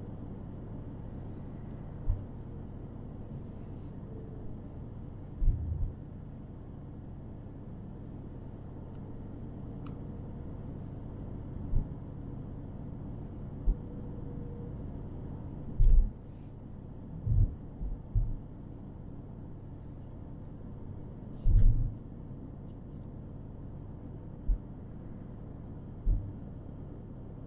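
A car driving on the road: steady low road and tyre rumble, with short low thumps every few seconds at irregular intervals.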